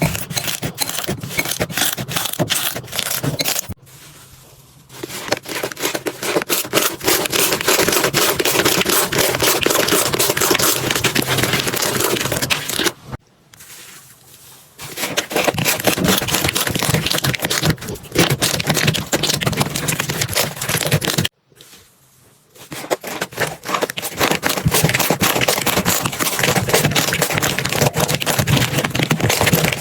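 Slime being squeezed, pressed and stretched by hand, with dense crackling, popping and sticky scraping, in four stretches with brief quiet breaks between them.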